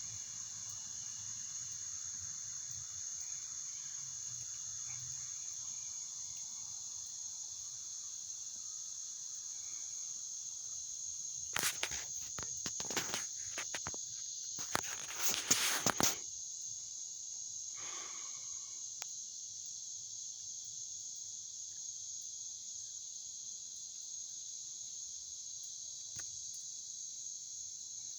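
A steady, high-pitched chorus of chirping insects, typical of crickets. About halfway through comes a few seconds of close, loud rustling noise.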